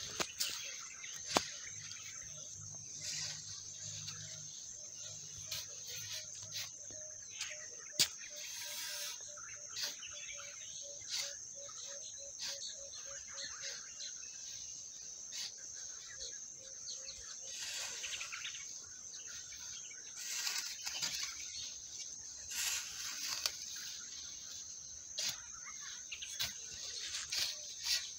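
Metal shovel scraping and knocking into a loose pile of biochar and sawdust as the two are turned and mixed, in short irregular strokes. A steady high-pitched whine runs underneath, and a rapid run of short repeated notes starts a few seconds in and lasts about ten seconds.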